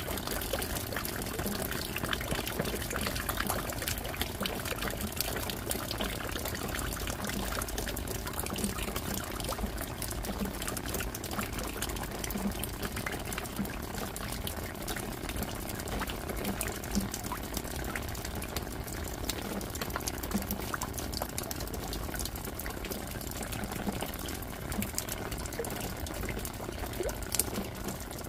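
Steady rain: an even hiss of falling rain with many separate drop splashes and drips.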